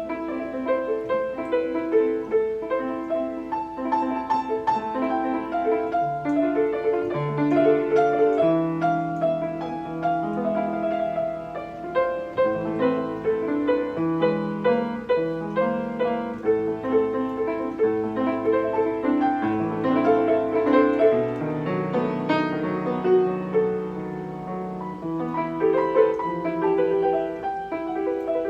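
Steinway piano played continuously: a polyphonic passage of many overlapping sustained notes over a moving bass line.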